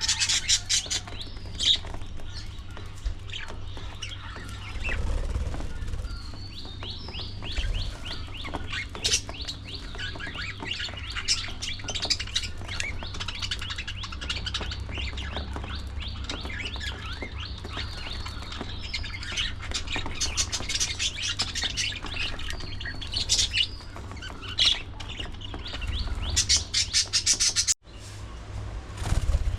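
A flock of budgerigars chattering and chirping continuously, with fast warbling trills, over a steady low hum. The sound breaks off briefly near the end.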